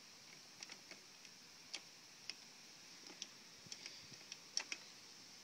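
Near silence with faint, irregular clicks and ticks, a few a second, slightly louder in the second half.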